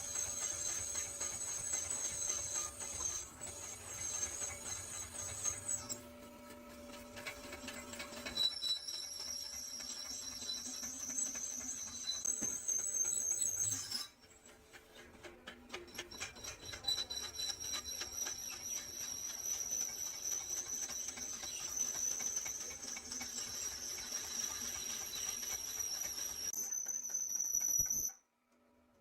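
A workshop machine running with a steady high-pitched whine over a fast crackle. Its pitch steps to a new level several times, and it cuts off abruptly near the end.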